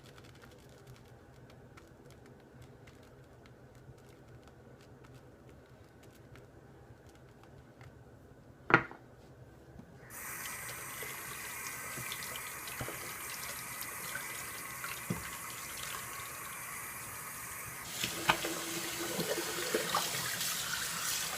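Faucet turned on about halfway through and running steadily into a sink, after a quiet stretch with a few faint clicks and one sharp click. Near the end the sound of the stream changes as something is held under it.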